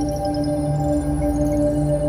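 Ambient electronic background music: held synth tones over a pulsing low note, with small twinkling high notes.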